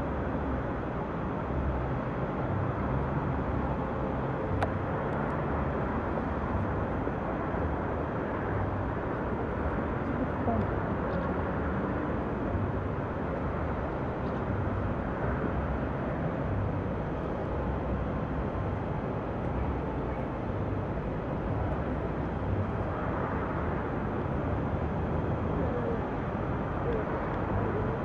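Steady outdoor ambience from a hilltop over a city: a constant hum of distant traffic with uneven low rumbling from wind on the camcorder microphone.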